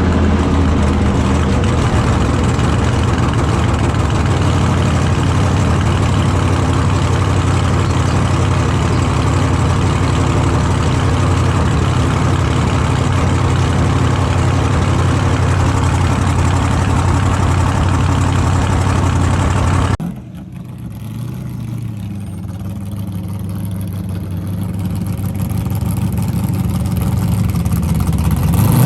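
A drag car's engine idling loudly and steadily. About two-thirds of the way through it cuts suddenly to a quieter engine sound that slowly builds, and a rising rev starts right at the end.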